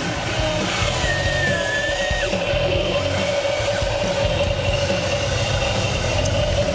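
Background rock music with electric guitar.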